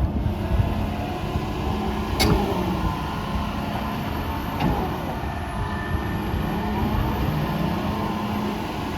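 John Deere 210G LC hydraulic excavator's diesel engine running steadily, with two sharp knocks about two and four and a half seconds in.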